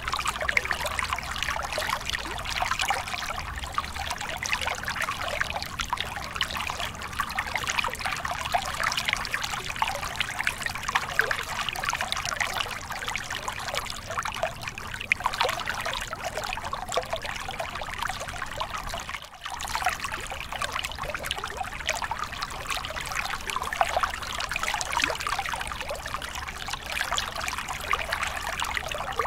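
Mountain stream water running over a small cascade between rocks and splashing into a pool: a steady trickling and pouring, with a brief drop in level about two-thirds of the way through.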